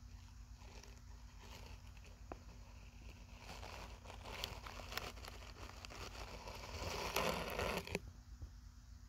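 Soft rustling and crackling of dry fibrous bedding as a rat snake shifts its coils while swallowing a mouse. The rustling grows louder and stops abruptly about eight seconds in.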